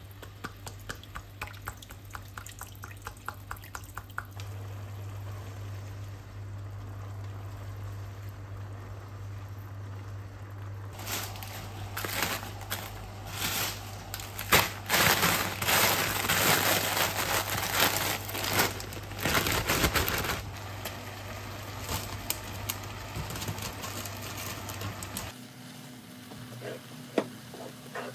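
Kitchen handling sounds: water poured into a frying pan, then a plastic bag crinkling loudly for several seconds as grated courgette is handled. A steady low hum runs underneath and stops near the end.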